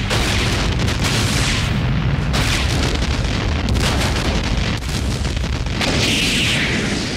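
Film sound effects of a nuclear bomb explosion: a loud, continuous rumbling blast with a heavy low end. Brighter surges of crackling blast noise come near the start and again about six seconds in.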